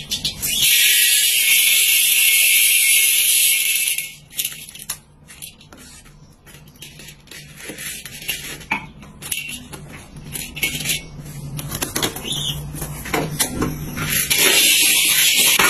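A loud steady hiss for about the first four seconds, then the scraping and clicking of dry popcorn kernels being stirred with a metal spatula in a wok, and the loud hiss returns near the end.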